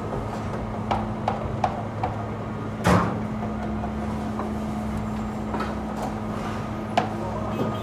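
Bakery machinery running with a steady hum, while a handful of sharp knocks and clanks come at irregular times; the loudest is about three seconds in.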